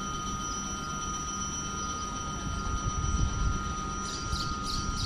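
Electric regional train at a station platform, giving a steady high-pitched hum over a low rumble.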